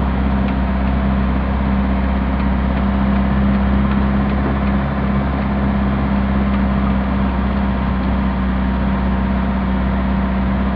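Car engine running with a loud, steady drone and a strong low hum, a noise that sounds as if the car is about to blow up.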